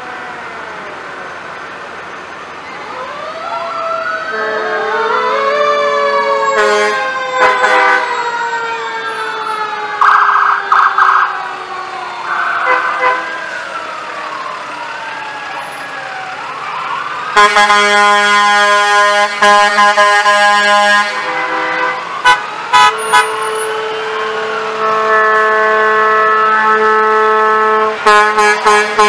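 Several emergency sirens wailing at once, their pitches rising and falling and overlapping, with a lower siren slowly winding down beneath them and a few short blasts. From about 17 seconds in, long truck air-horn blasts, with short toots between them and a second long blast near the end.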